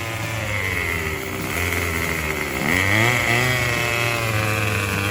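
Craftsman Speed Start 27cc two-stroke trimmer engine running just after its carburetor and fuel-line repair. The engine speed sags and climbs back up twice, so it runs unevenly.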